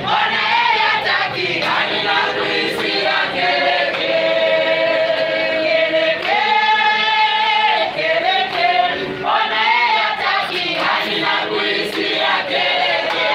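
A church congregation singing together, with several long held notes.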